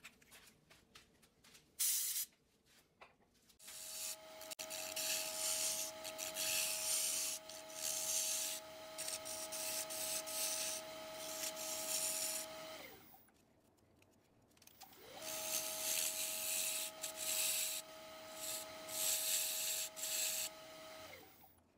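Wood lathe running with a steady motor whine while a gouge cuts into the spinning cherry platter, a rough hissing scrape of wood being shaved. The lathe winds down about halfway through, spins back up a couple of seconds later, and winds down again near the end. A few handling clicks come before it first starts.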